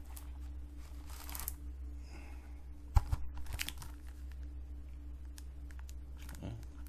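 Blu-ray packaging being handled by hand: paper and plastic rustling and crinkling, with scattered light clicks and one sharp click about three seconds in.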